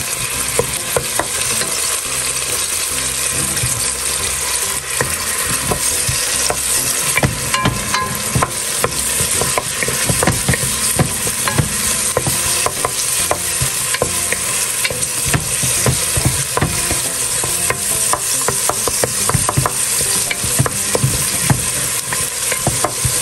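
Chopped onion and minced garlic sizzling in hot oil in a pan, stirred with a wooden spoon that scrapes and taps the pan in frequent short clicks over a steady hiss.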